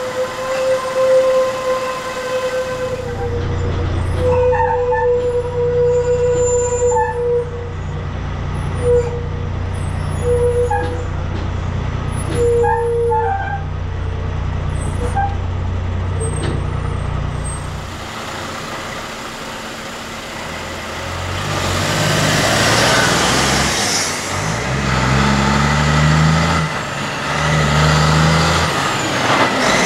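Kenworth C509 heavy-haulage truck's diesel engine running at a steady low crawl, with a steady high tone coming and going over it. Later the engine pulls away, its pitch climbing and dropping back as it changes gear, with a burst of air hiss.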